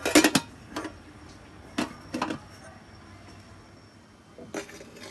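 Thin aluminium lid being set onto a large aluminium cooking pot, metal clanking: a quick cluster of knocks at the start, then a few single knocks.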